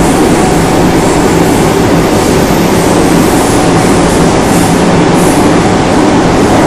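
Interior running noise of a Korail class 351000 IGBT-inverter electric multiple unit under way on the Bundang Line: a loud, steady rumble of the car and its wheels on the rails, with no break or change.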